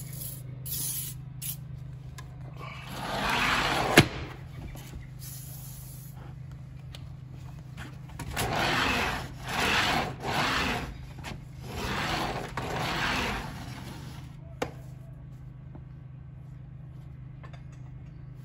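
Aerosol silicone lubricant hissing onto a sliding screen door's bottom track in short bursts, with rubbing and scraping as the screen door is worked along the track. A sharp click about four seconds in.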